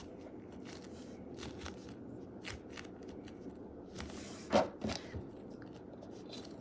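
A squishy toy being squeezed and handled close to the microphone for ASMR: faint scattered crackles and rustles, with a louder crinkle about four and a half seconds in.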